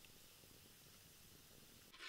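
Near silence, a faint steady hiss; right at the end, hot oil in a pan over a wood fire starts sizzling.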